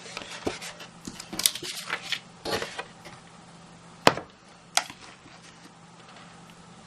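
Silver embossing powder and its container being handled over stamped cardstock: irregular rustling and light tapping, then two sharp clicks about four and five seconds in.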